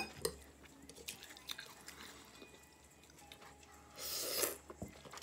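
Close-up eating sounds of spaghetti: a fork clicks against a ceramic plate at the start, followed by soft chewing, and a louder burst of eating noise about four seconds in as a forkful of pasta is lifted to the mouth.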